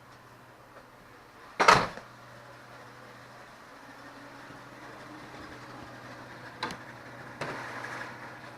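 2002 Toyota 4Runner idling steadily while a door is shut with a loud slam a little under two seconds in, followed later by a sharp click and a lighter knock.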